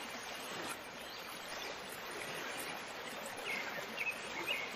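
Steady ambience of flowing river water, with a few short high chirps near the end.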